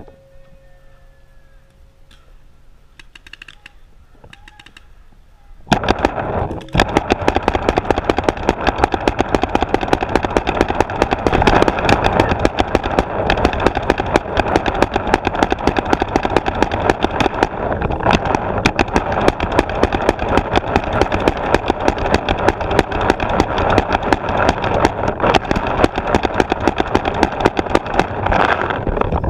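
Paintball markers firing a dense, unbroken stream of rapid shots, which starts suddenly about six seconds in after a quiet stretch.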